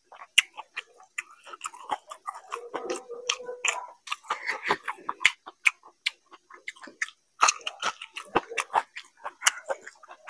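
Close-miked chewing and wet mouth sounds of a man eating spiced fried rice by hand, with many sharp, irregular clicks and smacks.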